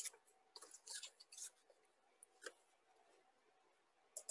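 Near silence over an open call microphone, broken by a few faint short rustles in the first second and a half and a couple of faint clicks later.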